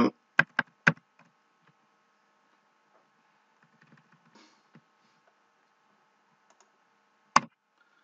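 A few sharp clicks from a computer mouse and keyboard while a document is being edited: two close together about half a second in, faint taps around the middle, and a louder click near the end, over a faint steady electrical hum.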